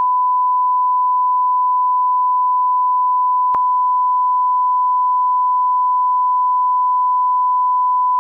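Steady 1 kHz reference tone of a bars-and-tone leader: a single unwavering pitch, the line-up tone played with SMPTE colour bars for setting audio levels. A brief click interrupts it about three and a half seconds in.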